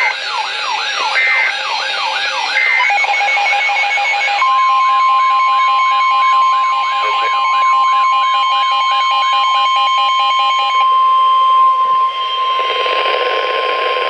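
Emergency alert audio: a yelping siren sweeps up and down about two and a half times a second, with three short bursts of buzzy SAME digital header tones near the start. About four seconds in, a steady single-pitch alert tone like the NOAA Weather Radio 1050 Hz warning tone joins it and holds through the rest. The siren stops about ten seconds in, and radio static rises near the end.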